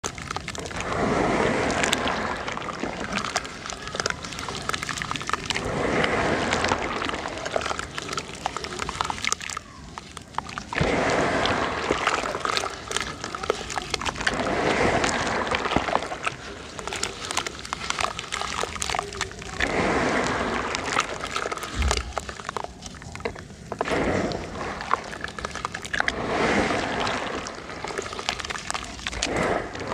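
Chunks of sand-cement mix being crushed and crumbling: a dense, crackling crunch that swells and fades in waves every four to five seconds.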